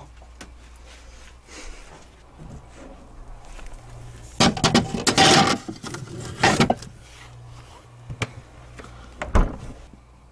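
A refrigerator opened and a heavy stone mortar put inside: a loud scraping, rattling clatter about four and a half seconds in and again briefly near six and a half, then a few clicks and a low thump near the end.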